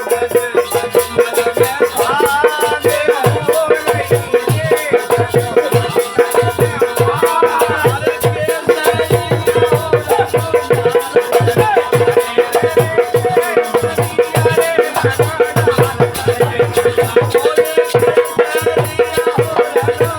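Indian folk phag song performed live: voices singing over a steady drum beat, jingling rattle-like percussion and a held steady tone.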